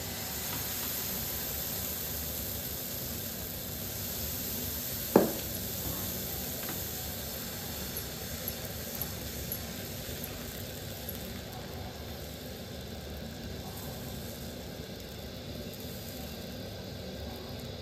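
Dosa batter sizzling with a steady high hiss on a hot tawa as it is poured and spread in a spiral with a ladle. One sharp knock about five seconds in, and a few light ticks around eight to nine seconds.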